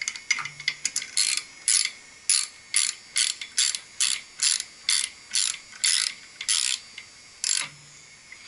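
Hand ratchet wrench clicking through repeated short back-and-forth strokes, about two and a half a second, tightening a fastener. It starts with a few quick clicks and then settles into a steady rhythm that stops near the end.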